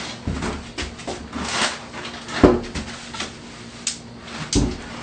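An Onyx Collection shower base being manhandled upright into the shower alcove: a string of knocks and thumps as it bumps against the subfloor and wall framing, with a brief scrape, the loudest knock about halfway through and another thump near the end.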